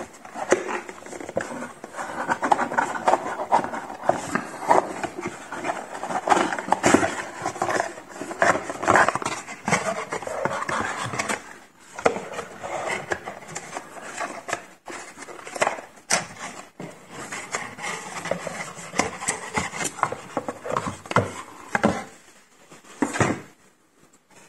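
Continuous rustling, scraping and clicking as a studio microphone shock mount and its packaging are handled, with one sharp knock about a second before the end.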